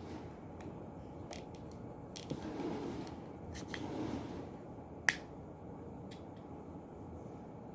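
Scattered small clicks and taps of a DC magnetic contactor's parts being handled during disassembly, with one sharp click about five seconds in.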